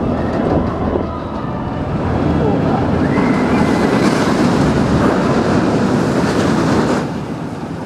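A steel looping roller coaster train rushing along its track, a rising roar of wheels on steel rails with riders' voices mixed in. It cuts off suddenly near the end.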